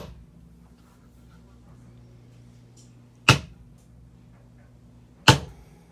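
Maul striking a metal leather stamping tool into leather laid on a granite slab, stamping a decorative edge border. Three sharp strikes a couple of seconds apart: one at the start, one about three seconds in and one about five seconds in.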